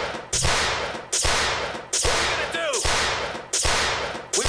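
A string of about six gunshots, a little under a second apart, each a sharp crack that fades out before the next.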